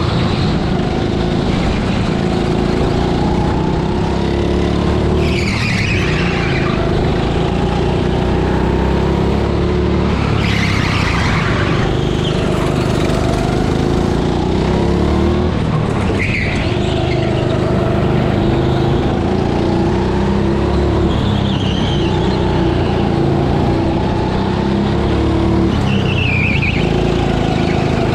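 Rental go-kart engine running under load on track, heard from on board: a steady engine note that drops off into each corner and climbs again out of it, about every five seconds. Short high squeals come in the turns.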